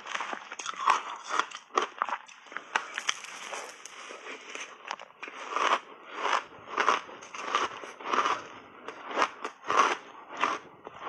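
Close-up crunching and chewing of frozen blueberry shaved ice coated in milk powder, one crunchy bite after another, about one to two crunches a second, with a quieter spell in the middle.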